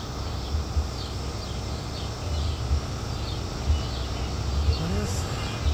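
Outdoor ambience: a low, uneven rumble on the microphone, with faint, short, high chirps repeating about every half second.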